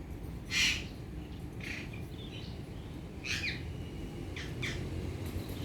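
Ringneck parrot giving a handful of short squawks and chirps, the loudest and harshest about half a second in, with briefer calls after it, some sliding in pitch.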